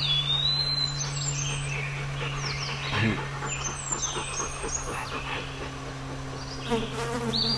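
Birds singing outdoors: a busy run of high chirps and quick whistling glides, with a steady low hum underneath.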